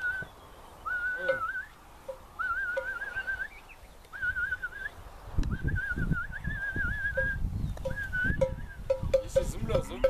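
Whistling: a warbling tone repeated in short phrases about every second and a half, with low rumbling noise joining about halfway through.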